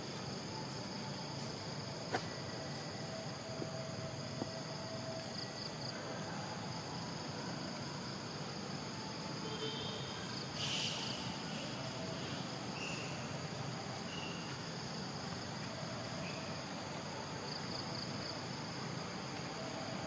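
A steady, high-pitched chorus of insects such as crickets. There is a single sharp click about two seconds in, and a brief burst of hiss with a few short high chirps around the middle.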